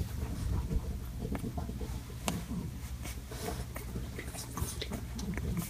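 Newborn puppies stirring on a towel: soft snuffling and shuffling with scattered small clicks and squeaks, over a low steady hum.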